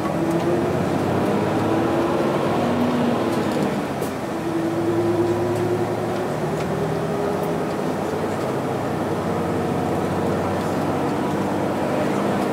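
Cabin running sound of an Isuzu Erga QPG-LV234L3 city bus: its diesel engine drones under steady road noise, and the engine note shifts up and down in pitch as the bus drives along.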